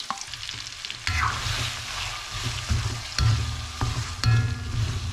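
Food sizzling in a hot pan while being stirred, with metal utensil scrapes and several ringing clinks against the pan.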